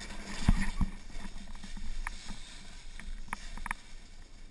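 Skis swishing through deep powder snow, with scattered sharp knocks and clicks; the loudest is a thump about half a second in.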